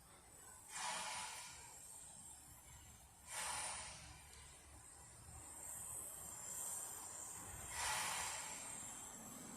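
Exhaust of a narrow-gauge NA class steam locomotive: three separate hissing chuffs, unevenly spaced a few seconds apart, over a steady low rumble from the running train.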